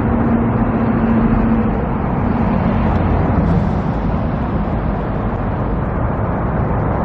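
Steady rumble of vehicle engines and traffic, with a low engine hum standing out for the first couple of seconds.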